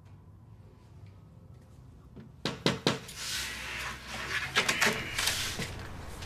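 A door: two sharp knocks about two and a half seconds in, then the door opening and someone coming in, with rustling, clattering and footsteps.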